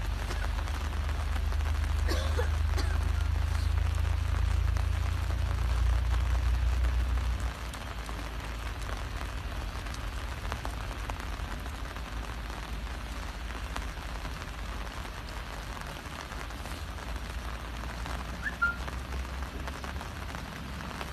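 Steady rain falling and pattering on the umbrellas overhead. A low rumble runs underneath and cuts off suddenly about seven and a half seconds in.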